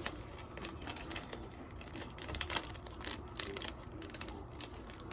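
Irregular crinkles and clicks of a snack package being handled and opened.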